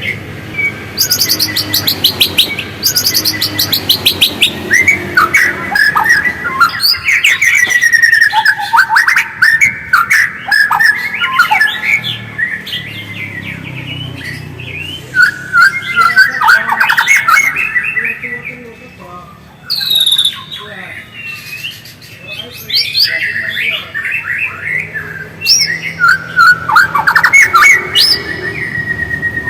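White-rumped shama (murai batu) singing: a long, varied run of whistled phrases and fast chattering trills, with a short lull about two-thirds of the way through.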